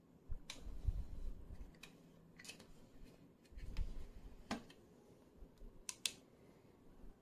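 Scattered plastic clicks and clunks from a Coast CL40R LED clamp light as it is handled and its clamp is worked, with low bumps from the handling. Two sharp clicks close together near the end come as a button on the light is pressed.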